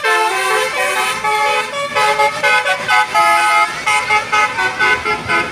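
Bus telolet horn playing a quick tune: a set of air horns sounding short notes that step up and down in pitch, several tones together.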